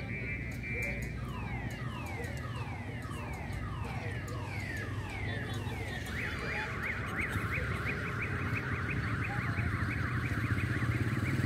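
Electronic alarm siren cycling through its tones: repeated falling whoops about two a second, then from about six seconds a fast up-and-down warble, over a steady low background hum.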